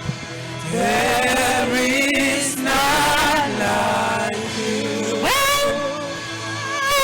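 Gospel worship song: a voice singing long, held notes with vibrato over a musical backing, sliding sharply up to a higher note about five seconds in.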